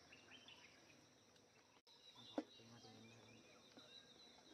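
Near silence: faint rural ambience with a few bird chirps and a thin, steady high insect drone. A single sharp click a little over two seconds in.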